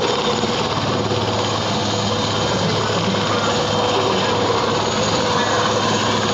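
Puma military helicopter hovering low overhead, its rotor chopping rapidly and steadily over a constant engine whine.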